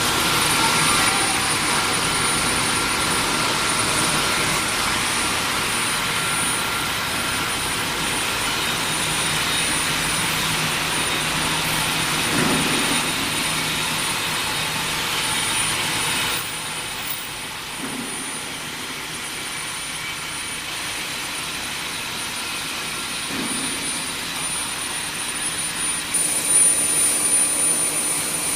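Sheet induction heating furnace line running: a steady, loud hiss-like machine noise with a faint high whine, easing off a little about halfway through.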